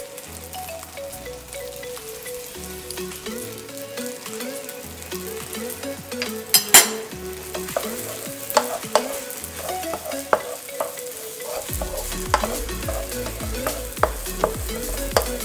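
Fried rice sizzling in a stone-coated nonstick wok while being stirred and turned with a spatula, with scattered scrapes and knocks of the spatula against the pan. The sharpest knock comes about halfway through.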